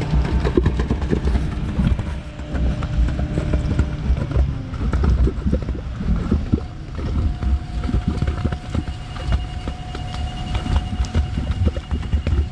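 Concrete boom pump filling a pier hole: concrete pushed in pulses through the rubber end hose, heard as irregular heavy knocking and thumping, with a faint steady hum under it.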